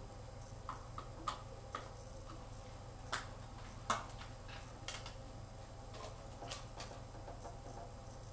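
Scattered light clicks and knocks, about eight spread irregularly with the sharpest near the middle, from a full-face motorcycle helmet being handled and pulled on, over a faint steady low hum.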